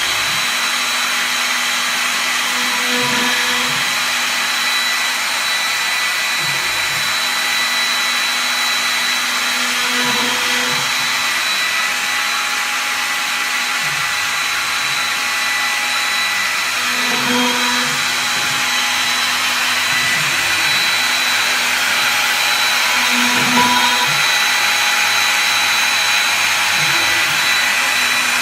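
CNC router running: a steady motor noise with a constant high whine. A lower tone swells about every seven seconds as the machine's work changes.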